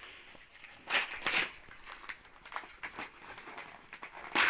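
Packaging being handled during an unboxing, rustling and crinkling in short bursts: two about a second in and a louder one near the end.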